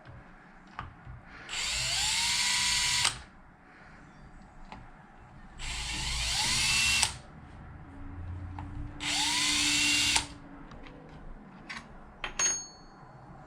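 Power drill boring mounting holes: three short runs, each a couple of seconds or less, the motor's whine rising as it spins up and then cutting off sharply. A few light clicks and taps follow near the end.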